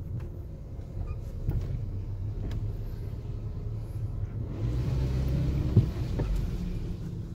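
Car engine and road noise heard from inside the moving car's cabin, a steady low rumble that swells for a couple of seconds after the middle, with a short sharp click near its peak.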